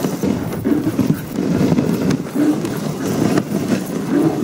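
Huskies running in harness, pulling a dog sled over snow: a continuous uneven rush of paws and sled runners on snow, with a few short low pitched sounds every second or two.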